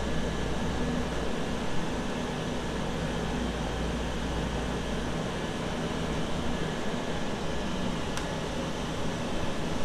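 Steady hum and ventilation noise inside a Mizuho Shinkansen passenger car, with a low drone and one short click about eight seconds in.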